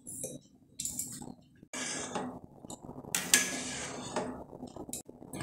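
Metal ladle stirring rice in a steel pot of boiling water, with clinks and scrapes of metal against the pot.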